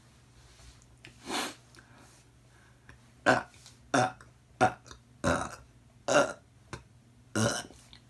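A person burping over and over. First comes a softer, drawn-out burp, then six louder ones about a second apart, some short and sharp and some longer.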